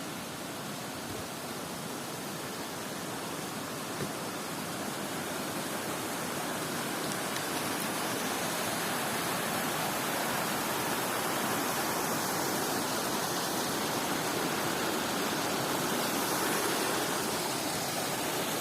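Running water rushing across a forest path, a steady stream sound that grows gradually louder as it is approached.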